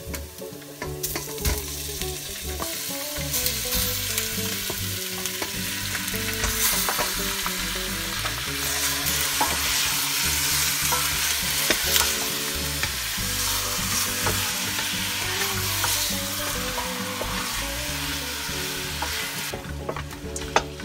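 Chopped pork sizzling as it fries in hot oil with sautéed garlic and onion in a stainless steel pot. The sizzle swells about a second in, as the meat goes into the pan, and eases off near the end. A wooden spatula stirs the meat, with scattered knocks and scrapes against the pot.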